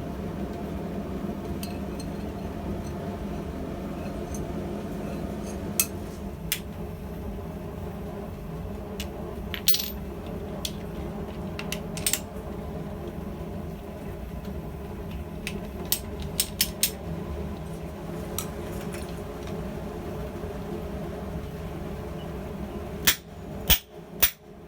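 Steady low drone of a running forge with scattered light metallic clinks of tongs and steel, then a few sharp hammer blows on steel near the end.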